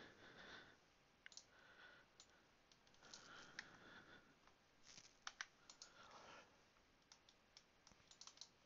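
Faint, scattered clicks of a computer mouse and keyboard, a dozen or so, bunched around the middle and again near the end.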